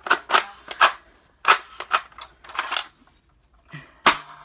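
Sharp plastic clicks and rustles, about six in four seconds, from a Nerf blaster and its packaging being handled during unboxing.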